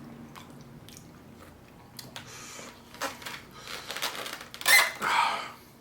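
Close-miked eating: a person chewing and biting into a burrito and carne asada fries, with wet mouth sounds and small clicks, and a louder burst of mouth noise near the end.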